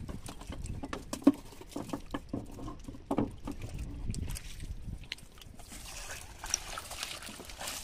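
Scattered knocks and taps over a low rumble, with one sharp knock about a second in; then, from about five seconds on, a fishing net full of just-caught mullet rustling and pattering as it is handled.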